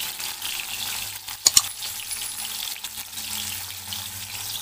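Pieces of dried fish frying in hot oil in a kadai: a steady sizzle, with a sharp double click about a second and a half in.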